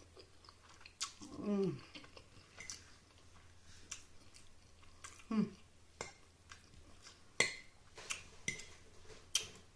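Close-up eating sounds: a person chewing a mouthful of spaghetti, with two short hummed "mmm"s of enjoyment falling in pitch, about a second in and again after five seconds. Sharp clicks and taps of a metal fork on the bowl come through, the loudest about seven seconds in.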